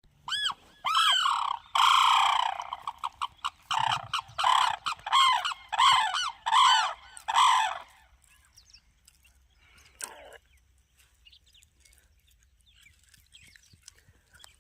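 Sarus crane calling: a rapid series of loud, arching trumpeting calls, some long and some short, that stops about eight seconds in. One fainter call follows a couple of seconds later.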